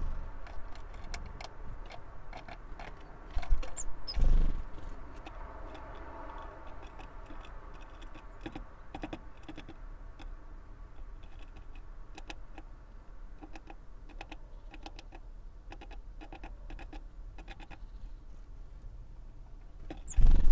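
Great tit pecking at seed on a wooden feeder tray: an irregular run of sharp taps. Low thumps come about three and four seconds in and again near the end.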